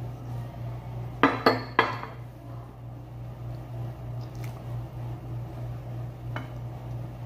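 A ceramic bowl knocking against a glass tabletop: three quick ringing clinks a little over a second in, then a faint click near the end. A steady low hum runs underneath.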